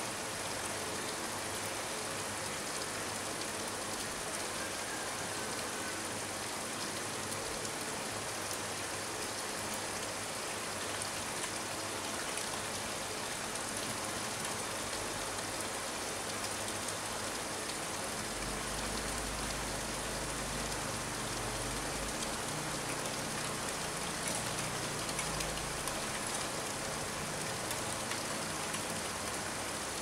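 Steady rain falling on a pond and wet concrete, with a thin stream of water running down into the pond. A low rumble joins for several seconds past the middle.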